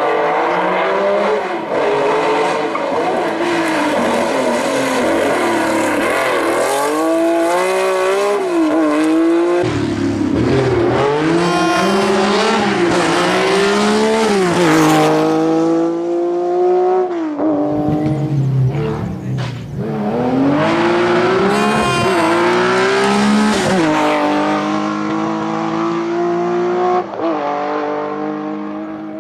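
Rally car engines revving hard through the gears, the pitch climbing and then dropping sharply at each gear change, over and over. After a short lull about two-thirds of the way in, there is another run of revs, fading near the end. The car passing about halfway through is a classic Porsche 911 with an air-cooled flat-six.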